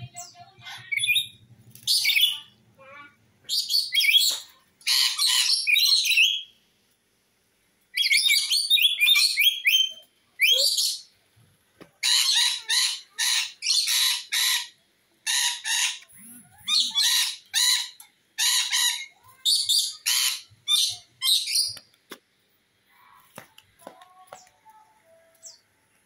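Lory giving a long run of loud, harsh, shrill screeching calls, each a short burst, repeated in quick succession, with only faint chatter near the end.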